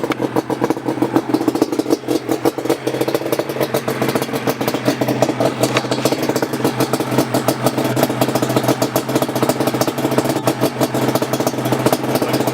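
Two-stroke engine idling steadily, with a fast, even pulsing beat.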